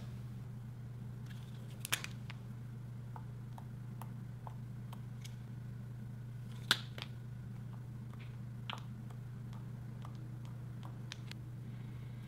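A few sharp plastic clicks and light taps from handling liquid chalk markers, their caps pulled off and snapped on and the tips dabbing ink onto soft slime. The loudest click comes just past halfway. A steady low hum runs underneath.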